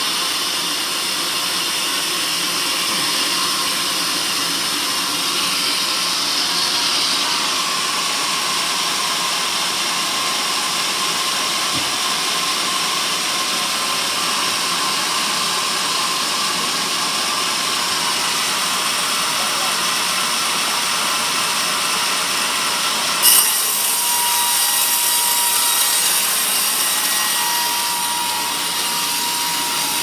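Band sawmill blade cutting through a teak beam: a steady hiss of the saw in the wood, with a short knock about two-thirds of the way through, after which a thin steady whine comes in.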